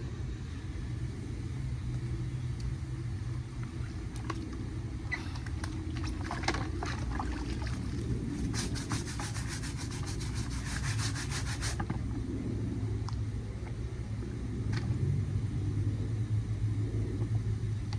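A shoe being scrubbed by hand with a brush: a run of quick, rhythmic scrubbing strokes from about five seconds in to about twelve seconds, over a steady low hum.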